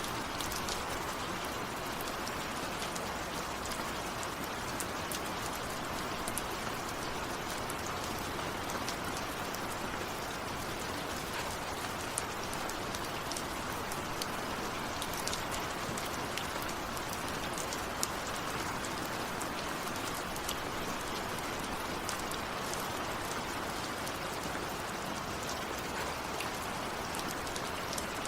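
Steady rain falling, with many individual drops ticking sharply on a surface close by.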